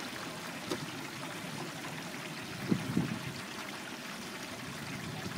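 Steady hiss of outdoor turkey fryers: propane burners under lidded stockpots of hot oil with turkeys frying in them. A few brief knocks sound over it, the loudest about halfway through.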